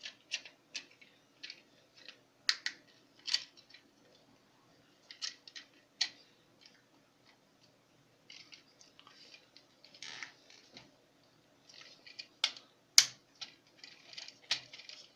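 Plastic parts of a Tobot Tritan transforming toy being worked by hand: irregular clicks and snaps as pieces fold and lock into place, with brief scraping rustles between them and the sharpest snap near the end.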